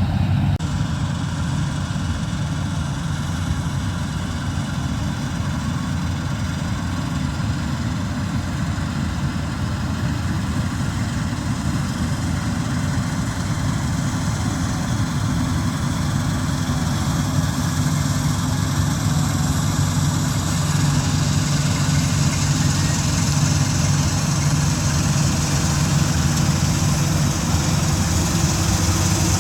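Combine harvester's diesel engine running steadily with a deep drone, and a higher hiss that grows louder about halfway through.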